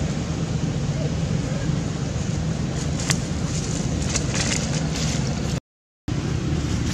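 Steady wind buffeting the microphone, with dry leaves crackling as they are handled between about three and five seconds in. The sound cuts out completely for about half a second near the end.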